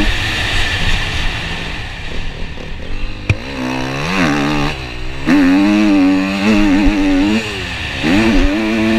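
Dirt bike engine on a motocross track, the throttle snapped shut at the start and the engine low for a few seconds, then revving up and down again with a sharp knock just before. Revs are held high for a couple of seconds, dip, and climb once more near the end.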